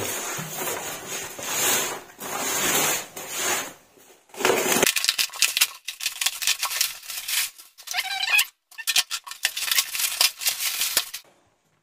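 Bubble wrap and clear plastic film being pulled off a parcel, rustling at first, then a long run of dense crackling with many sharp clicks that stops about a second before the end.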